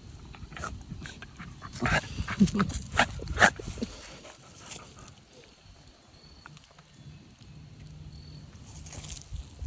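Beagle–silky terrier mix sniffing and snuffling as she noses through the undergrowth, with a burst of loud, short sniffs and rustling about two to three and a half seconds in.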